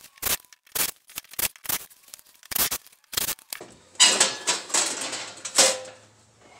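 A string of sharp clicks and knocks at uneven spacing as the screws of a steel breaker-panel cover are backed out with a cordless driver. About four seconds in, the sheet-metal cover rattles and scrapes loudly for about two seconds as it is lifted off the panel.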